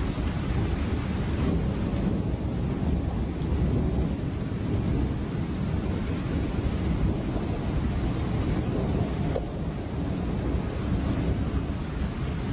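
Thunderstorm: steady heavy rain with a continuous low rumble of thunder, with no single sharp crack.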